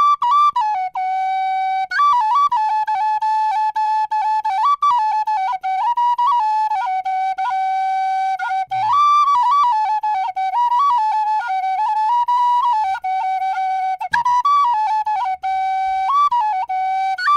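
Intro music: a solo flute playing a melody, one note at a time, moving among a few neighbouring notes.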